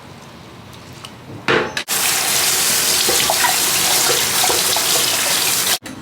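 Kitchen tap running into a sink: a steady rush of water that starts about two seconds in and cuts off suddenly near the end.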